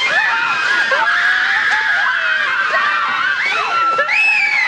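Several voices screaming and wailing over one another, starting suddenly loud.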